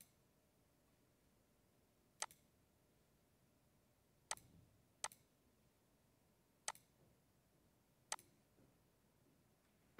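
Computer mouse clicks: five single clicks spaced a second or two apart, with near silence between them.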